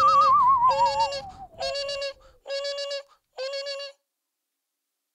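An alarm clock's beeping imitated by a beatboxer's voice: a run of buzzy beeps, about one a second, with a warbling whistle falling in pitch over the first second. The beeps stop about four seconds in.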